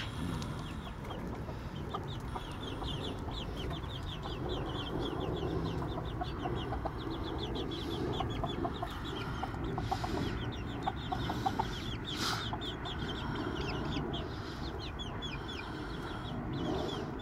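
A flock of young chickens peeping continuously in rapid, short, high chirps, with scattered lower clucks mixed in.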